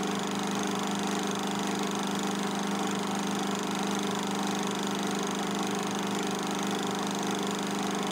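Film projector running with a steady mechanical hum, a constant low drone that does not change.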